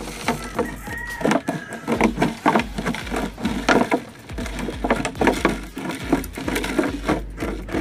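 Scissors cutting through a stiff old plastic gallon jug: an irregular run of snips, crunches and plastic crackles.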